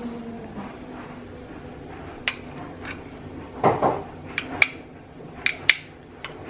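Metal spoon clinking against a small glass bowl while filling is scooped out onto an omelet in a frying pan: a string of sharp clinks, several in quick pairs, with one duller knock midway.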